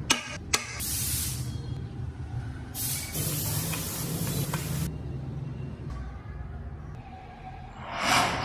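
Compressed air hissing in bursts: a short burst about a second in, a longer one of about two seconds in the middle, and another near the end, over a low steady hum, with a couple of sharp clicks at the start.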